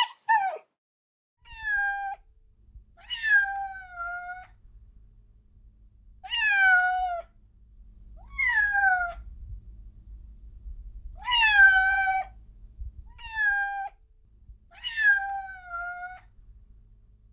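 Domestic cat meowing over and over, about eight separate meows each falling in pitch, spaced one to three seconds apart, over a faint low rumble.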